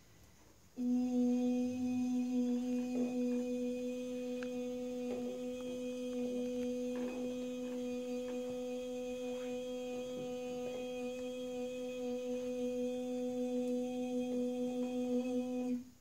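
A woman humming one long, steady, low note for about fifteen seconds, starting about a second in and stopping abruptly near the end, as in healing toning.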